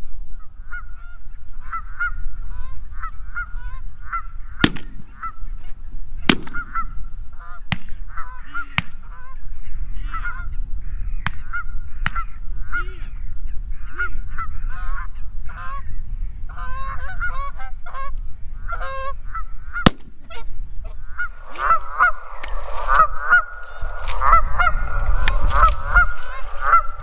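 Geese honking: a regular series of evenly spaced honks, then from about three-quarters through a flock calling thickly and louder as the geese come in. A few sharp clicks sound in the first third, over a low rumble.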